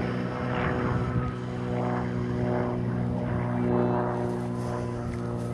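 A radio-controlled model glider's motor and propeller running in flight just after takeoff, a steady drone holding one pitch.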